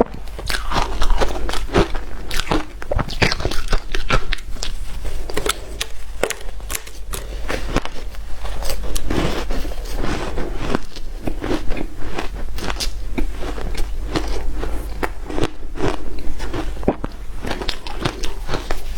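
Hard shaved ice being bitten and chewed: a dense, continuous run of sharp crunches.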